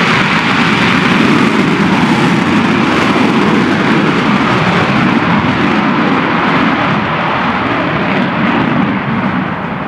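Eurofighter Typhoon's twin EJ200 jet engines at takeoff power as it rolls down the runway and lifts off: a loud, steady jet roar that begins to fade near the end as the jet climbs away.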